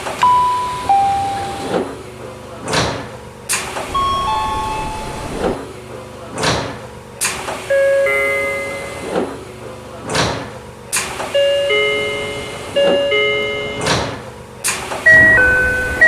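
Keio 8000 series train's sliding doors working over and over, each door noise a sharp stroke that dies away, with a different electronic door chime dubbed in at each cycle. Most chimes are two-note falling ding-dongs at different pitches and tone colours, and near the end the pairs come twice in quick succession.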